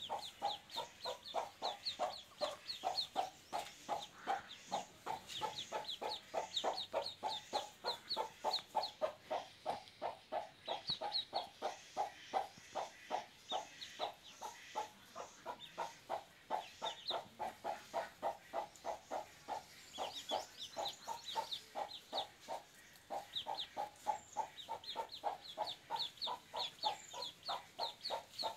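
Ducklings peeping in high bursts over a steady run of lower clucking calls, about four a second, that goes on without a break.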